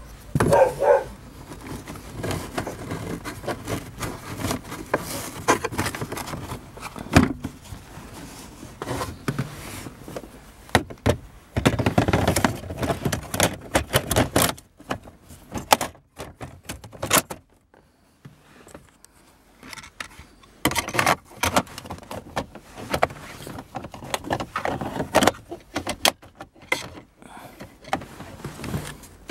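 Irregular clicks, knocks, rattles and scrapes as hands work the hard plastic centre-console trim around the handbrake of a 2003 Hyundai Santa Fe, with a short near-quiet pause a little past halfway.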